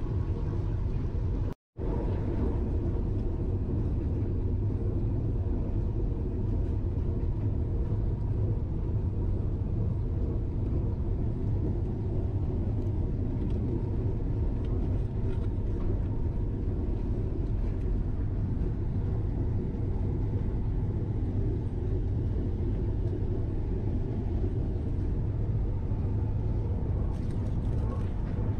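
Steady low rumble of the Vande Bharat Express (Train 18) running, heard from inside the coach, with a faint steady hum over it. The sound cuts out completely for a moment about a second and a half in.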